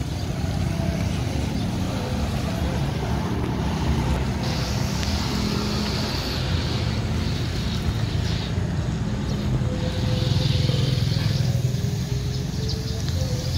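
Street traffic with motorcycles running past over a steady low rumble of engines.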